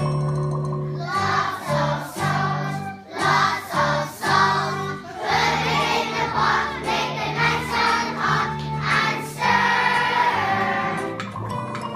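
Group of children singing together to a musical accompaniment with a steady bass line.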